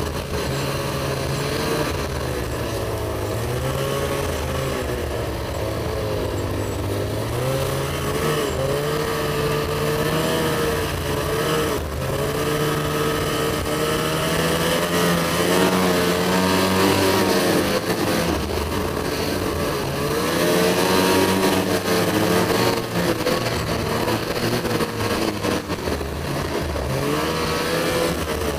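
Ski-Doo Summit snowmobile's two-stroke engine running under changing throttle while riding, its pitch wavering up and down and rising twice (about halfway through and again a few seconds later), over a steady rush of wind and track noise.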